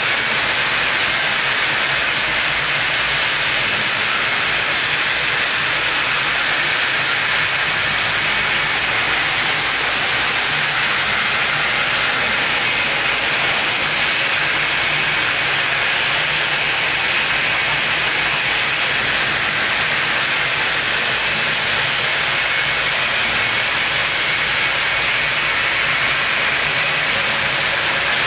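Steady, unchanging hiss of noise, strongest in the upper treble, with no separate knocks or tones.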